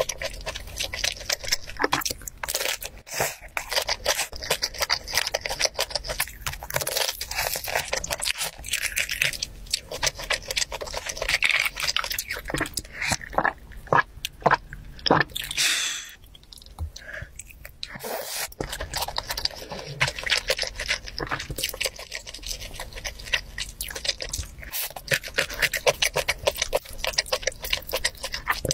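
Close-miked eating: chewing and crunching food with many small wet mouth clicks. Around the middle there are a few seconds of drinking from a glass of iced drink, then the chewing resumes.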